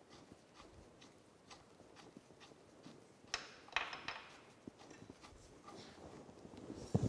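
Faint, irregular light metal clicks and taps as steel bolts are threaded in by hand and a wrench is picked up, with two sharper clicks about three and a half seconds in and a louder clink at the very end.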